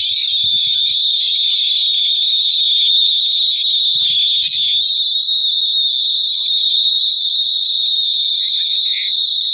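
Loud, steady, shrill electronic whine with a hissing edge, like an alarm tone, from a heavily distorted edited soundtrack. It narrows slightly about halfway through.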